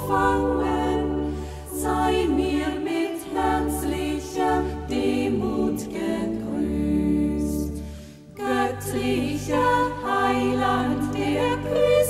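A choir singing a Christmas song over held low bass notes, with a short break between phrases about eight seconds in.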